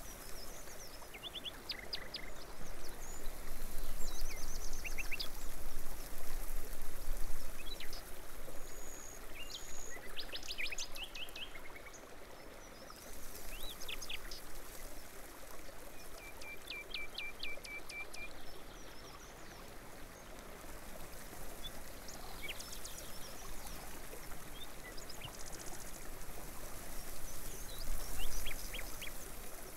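Small birds chirping and twittering in short calls and quick trills that come and go, over a steady trickle of running water.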